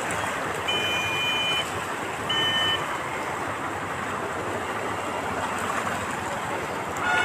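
Floodwater rushing through a flooded street, a steady rush of noise. Two short high beeps sound over it, the first about a second long near the start and a shorter one a second later.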